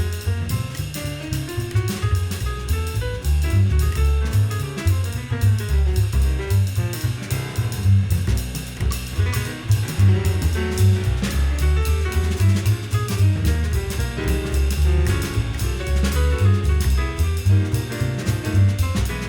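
Jazz piano trio playing: acoustic piano, upright bass with moving bass notes, and a drum kit with busy cymbal strokes.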